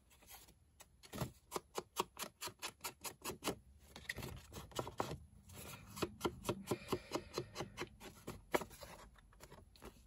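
Quick, light taps of ink being dabbed onto paper with an ink applicator, several taps a second in an uneven rhythm, while the edges of a journal page are inked with Peeled Paint distress ink.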